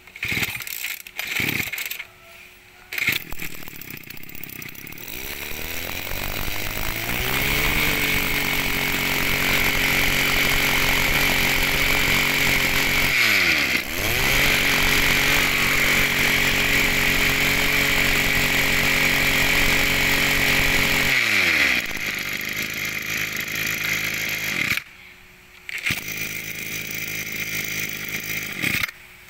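Small two-stroke engine of an Echo (Kioritz) 24cc brush cutter, pull-started with a few sharp yanks, then running up to a steady high speed. It dips briefly about halfway, falls back to idle and stops, with lower running again near the end.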